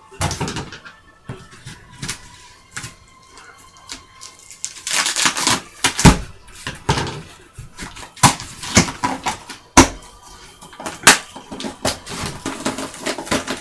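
A cardboard box being opened by hand with scissors: a run of sharp clicks and knocks with rustling bursts, loudest in a few sharp knocks about six, ten and eleven seconds in.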